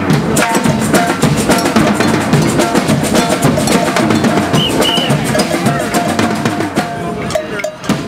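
Street drum corps playing a fast, dense rhythm on drums, with some sustained pitched notes over it, getting quieter near the end.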